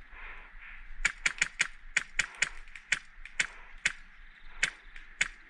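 Airsoft guns firing a rapid, irregular string of about fifteen single shots, starting about a second in, as sharp clicking cracks.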